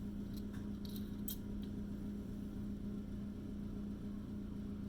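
A few quick sprays from a cologne bottle's atomizer, short hissy spurts about a second in.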